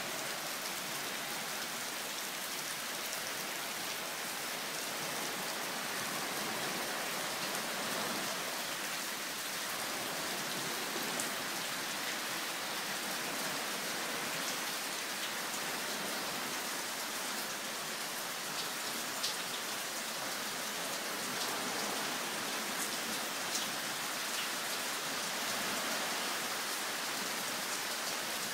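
Heavy downpour falling steadily on leaves and wet paving, with a few sharper drop strikes now and then.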